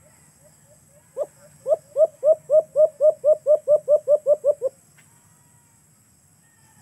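Caged dove calling: a few soft notes, then a loud run of about fifteen short hooked coos that come slightly faster toward the end and stop abruptly.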